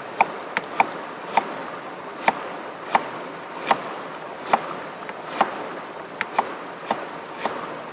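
Knife slicing an onion into lengthwise strips, a sharp tap on the cutting board with each stroke, about one a second, over the steady rush of a river.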